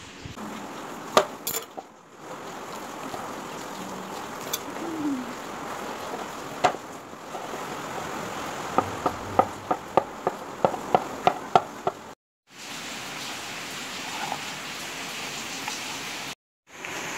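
Knife chopping garlic cloves against a hard surface, a run of sharp even taps about four a second, among scattered kitchen handling clicks over a steady hiss. The sound drops out completely twice for a moment.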